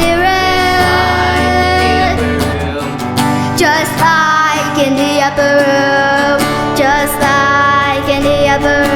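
Worship band music: a female voice singing long held notes with a slight waver, over guitar and a steady bass.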